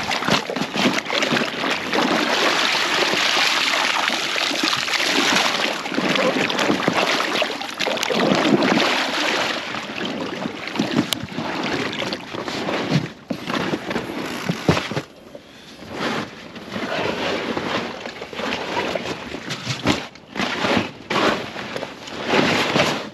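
A black plastic unhooking mat being dunked and swished in river water to wet it: water sloshing and splashing with the wet mat rustling. The sound is loud and continuous for the first half, then comes in shorter irregular bursts.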